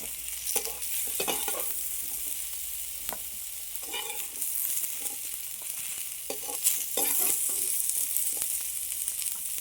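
Jackfruit and potato pieces sizzling in hot mustard oil in an iron kadai, with a spatula scraping and knocking against the pan now and then as they are stirred and lifted out.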